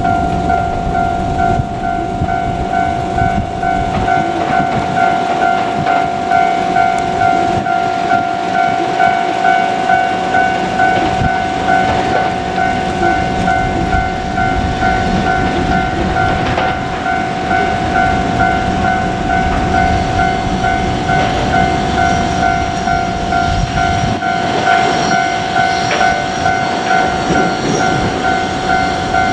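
Level-crossing warning bell ringing on and on in a repeating electronic clang, over the rumble and rail clatter of a JR Kyushu 787 series express train running past.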